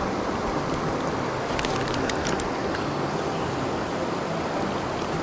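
Steady rush of a mountain river's current, running high after rain, with a few faint ticks about two seconds in.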